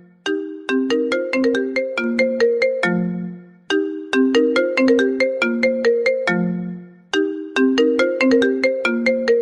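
A fast iPhone-style ringtone melody of short, quickly fading notes. The phrase plays three times, about every three and a half seconds, and each time ends on a lower held note that fades away.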